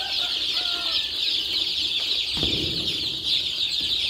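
A brooder full of baby chicks peeping, a dense, continuous chorus of high chirps. A brief low bump comes about two and a half seconds in.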